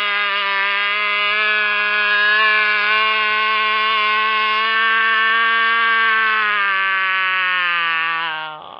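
A man's long, drawn-out wail held at one steady pitch, sagging a little lower near the end and breaking off just before it finishes.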